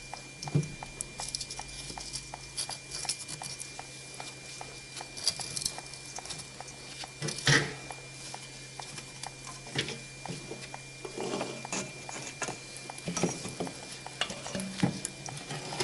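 Metal clinks, taps and rattles of hand tools and engine parts being handled, with one louder clank about halfway through. A faint steady hum runs underneath.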